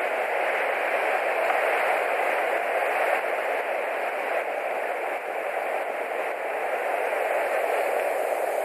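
Steady, even rushing hiss picked up by the nest camera's microphone, unchanging throughout with no distinct events.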